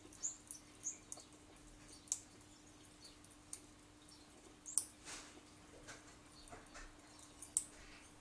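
Small birds chirping from a cat-TV video played on a laptop's speakers: scattered short, high chirps and a few sharp clicks.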